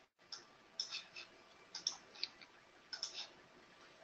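Faint, irregular clicks of a computer mouse, some in quick pairs.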